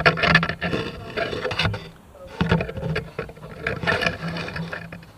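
Handling noise from a camera being moved and set down: rustling, scraping and knocking in three bursts of about a second each, over a faint steady low hum.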